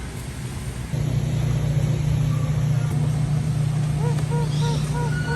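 Car running with a steady low rumble and hum, which gets louder about a second in. Near the end a few short rising-and-falling tones repeat faintly over it.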